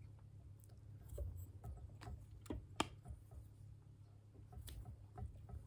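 Faint, irregular small clicks and ticks of thread being wound and locked down on a jig hook, with one sharper click about three seconds in, over a steady low hum.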